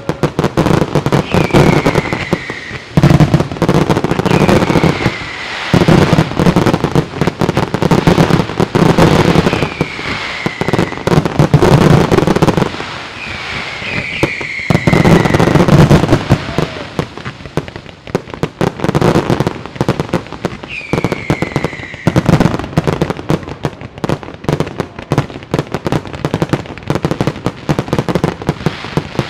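Fireworks display going off continuously: a dense run of bangs and crackling from shells, mines and comets, with several short whistles falling in pitch over it.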